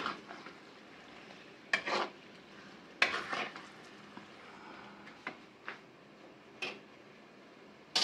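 A spoon stirring cubed potatoes as they are lightly fried in a masala in a cooking pot, clacking and scraping against the pot with sharp knocks every second or so, over a faint sizzle.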